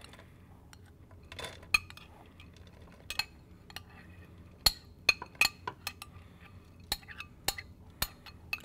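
A utensil tapping and scraping against a glass bowl as cooked ground pork is scooped out into a skillet, with scattered sharp clinks, the loudest a little under five seconds in.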